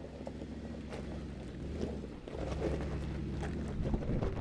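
Mercedes-Benz G-Class V8 engine running at low revs as the SUV crawls down a steep gravel slope, its note rising a little about two seconds in, with the tyres crunching and popping over loose stones.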